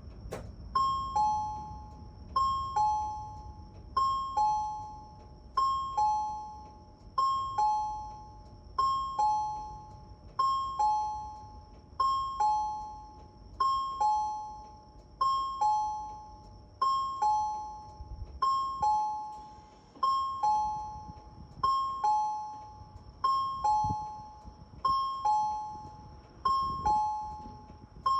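Resonant Systems turn-warning chime on a Seibu bus, sounding while the bus turns right or left. It is a two-note ding-dong, a higher note then a lower one, repeating about every second and a half over a low rumble.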